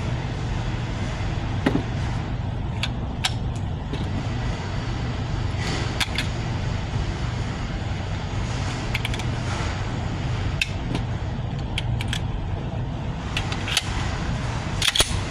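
A steady low rumble with about a dozen sharp clicks and taps scattered through it, the loudest cluster near the end. There are no gunshots.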